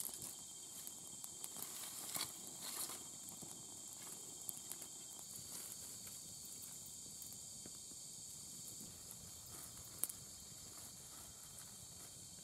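A steady chorus of night insects chirping, with brief rustling about two seconds in and a single sharp click about ten seconds in.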